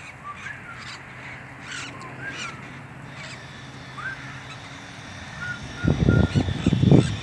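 Wild parrots calling in scattered short squawks, some rising in pitch. Loud low thuds come in a cluster over roughly the last second and a half.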